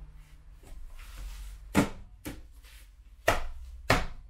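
Sharp knocks of hands striking a PVC windowsill, tapping it home against the window frame as it is seated on mounting foam; about four knocks from about two seconds in.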